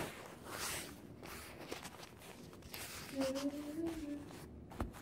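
Clothing and camera-handling rustle as the person moves close to the phone. About three seconds in comes a short hummed voice sound, and a sharp click comes near the end.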